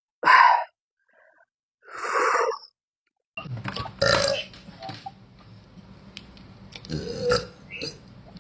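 A person burping loudly: one burp just after the start and another about two seconds in, then more burps over a steady background hum in the second half.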